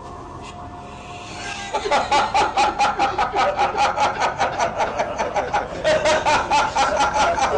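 A person cackling with a long, high-pitched laugh: a rapid run of "ha-ha-ha" pulses, about five a second, starting about two seconds in.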